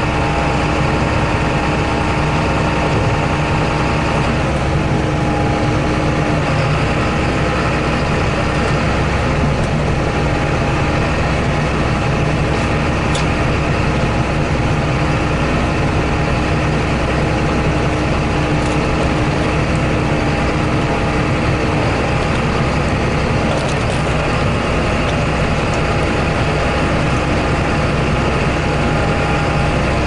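John Deere 8100 tractor's six-cylinder diesel engine running steadily under way, heard from inside the cab: an even drone with a faint steady whine above it.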